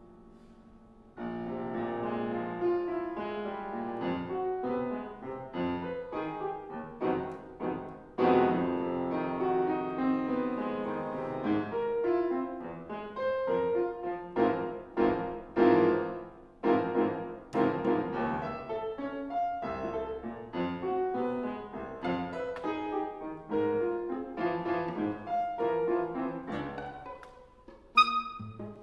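Chamber ensemble playing contemporary classical music, with the piano to the fore in a busy stream of short struck notes that starts about a second in. A sharp, bright accent comes near the end.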